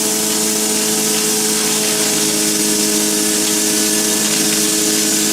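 Corn husk grinding machine running steadily: a constant motor hum under a loud, even high hiss.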